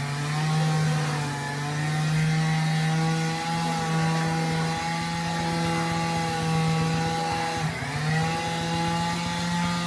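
A small motor running steadily at one held pitch, which sags briefly about eight seconds in, then recovers and cuts off at the end.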